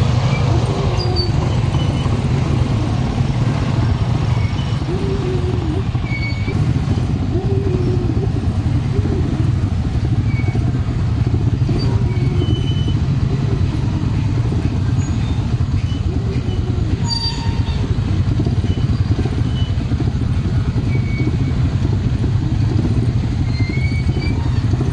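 Motorcycle engine running as it creeps along in slow traffic: a steady low rumble, its note wavering up and down with the throttle, with short high chirps now and then.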